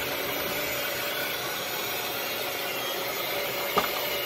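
Electric meat slicer's motor running steadily with a constant hum, its circular steel blade spinning as venison is pushed against it for jerky strips. One sharp click about four seconds in.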